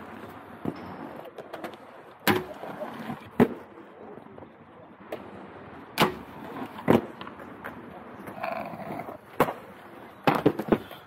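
Aggressive inline skates on a concrete skatepark: wheels rolling with scattered hard clacks, then a quick cluster of sharp knocks near the end as the skater lands on a concrete ledge to grind it.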